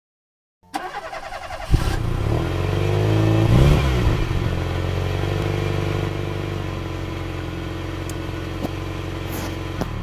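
An engine cranks for about a second, catches, revs up and back down, then settles into a steady idle.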